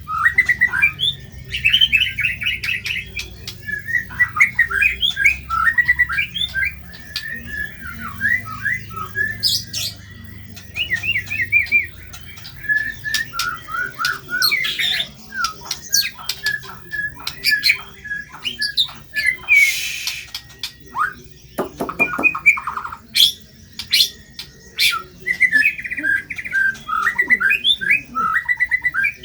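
White-rumped shama (murai batu) singing a fast, varied song of rapid chattering and whistled notes mixed with sharp clicks and harsh, rough squawk-like calls.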